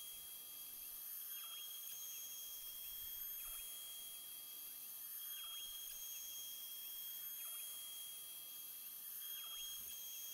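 Shapeoko 3XL CNC router cutting maple, heard faintly: a steady high whine with a faint pattern repeating about every two seconds.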